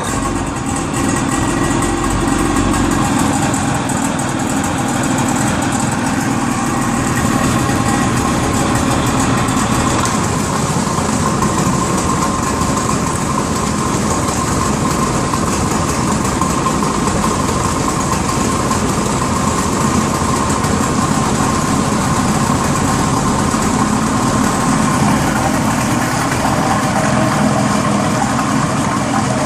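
Rebuilt 1978 55 hp Evinrude two-stroke, loop-charged outboard engine starting up and running steadily at idle in a test drum.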